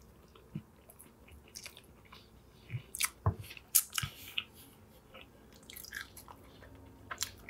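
Mouth sounds of someone biting into and chewing a toasted Southern fried-chicken sandwich, close to a lapel microphone: scattered short wet clicks and smacks, busiest about three to four seconds in.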